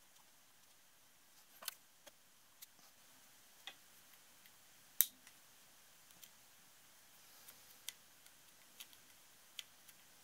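Light, irregular metal clicks and taps as a cast piston is handled and fitted onto an engine's connecting rod, about nine in all, the sharpest about five seconds in.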